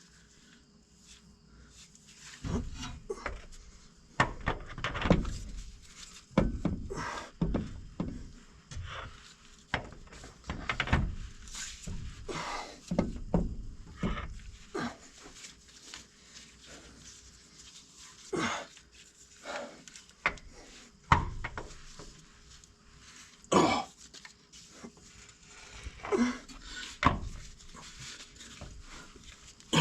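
Hand tools and metal truck parts clanking and knocking at irregular intervals, with some heavier thuds, during work on a truck's transmission and PTO mounting.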